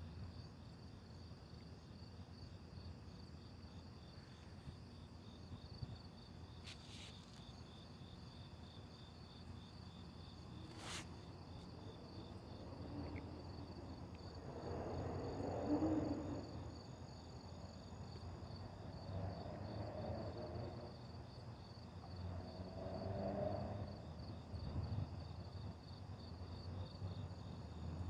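Crickets chirping in a steady, pulsing chorus over a low rumble of distant traffic. Two brief clicks come in the first half, and louder swells rise around the middle and again near the end.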